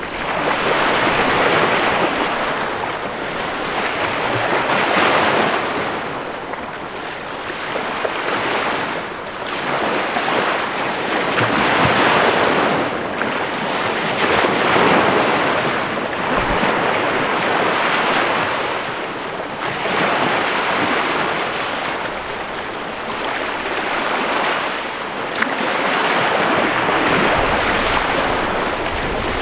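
Small bay waves breaking and washing up onto a sandy shore, the surf swelling and easing every three to four seconds.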